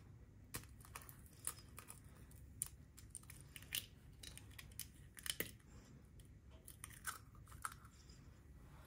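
Quiet, irregular crackles and clicks of an eggshell being pried apart by hand.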